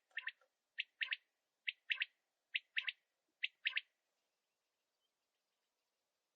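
Male common quail (batair) singing its three-note 'wet-my-lips' call: four phrases, each a single sharp note followed by a quick pair, about a second apart, after a few softer notes at the start. It stops about four seconds in.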